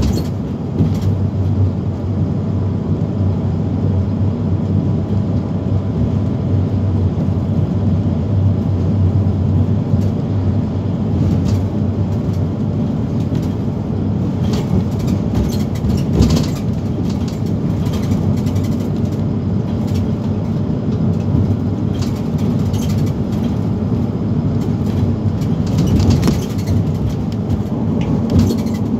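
Van Hool NewA360 city bus heard from inside the passenger cabin while under way on an open road: a steady engine and drivetrain hum with road noise, broken by a few short knocks.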